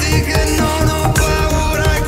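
A song playing, with a steady beat under sustained melody lines.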